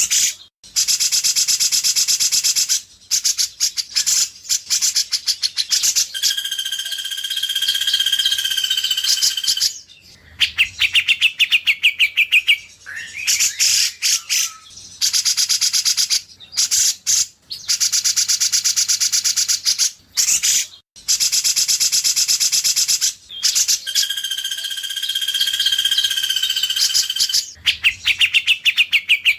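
White-rumped shama (murai batu) song from an edited training recording: fast runs of high, rapidly repeated notes broken by short pauses, with a clear held whistle at about a quarter of the way in and again near the end, the same phrase sequence coming round twice.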